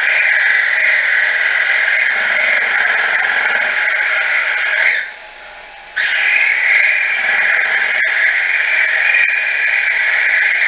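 Grizzly mini mill boring out a V-belt pulley's bore: a loud, steady, high-pitched cutting noise that breaks off for about a second midway and stops near the end. It is a heavier cut than intended, because the cheap feed dial overshot on the same number of turns.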